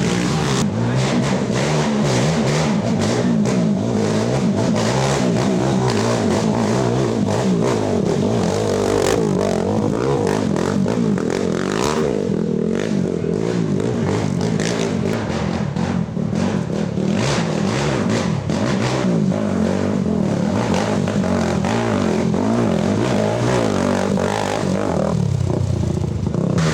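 Racing ATV engines revving up and down, several quads running at once with their pitches rising and falling over one another.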